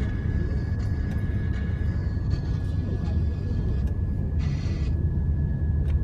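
Road noise inside a moving car: a steady low rumble of engine and tyres, with a thin high tone throughout and a short hiss about four and a half seconds in.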